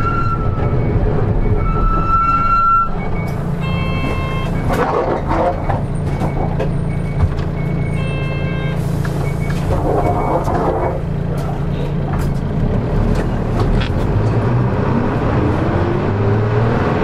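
Nissan Diesel Space Runner route bus's diesel engine running, heard from inside the bus: a steady low hum, with the engine note rising in pitch over the last couple of seconds as it accelerates. A few short electronic beeping tones sound over it in the first half.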